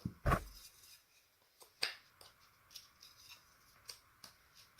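Wooden beehive frame parts being handled and fitted together while gluing: a sharp knock just after the start, another click about two seconds in, then light scattered taps.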